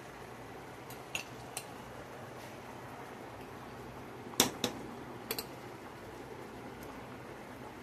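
A metal spoon scooping from a glass jar, clinking sharply a few times: twice faintly about a second in, then louder pairs around four and a half and five and a half seconds in. Under it is the steady low hiss of a pot at the boil.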